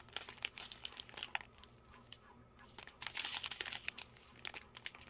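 Thin plastic bags of diamond painting drills crinkling as they are handled, in clusters of small crackles with a short lull a little past the middle.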